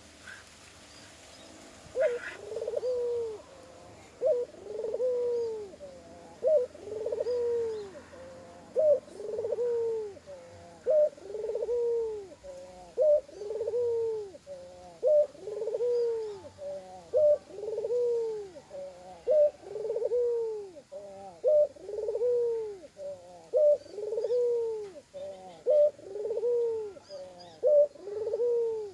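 A dove (burung kuter) cooing over and over, about once every two seconds after a short quiet start. Each phrase is a short sharp note followed by a longer coo that rises and falls. The call carries an unusual extra 'koak koak' that the bird's ordinary call lacks.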